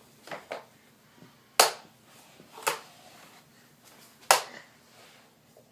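Three sharp knocks, the first two about a second apart and the third about a second and a half later, each dying away quickly, with two fainter taps before them.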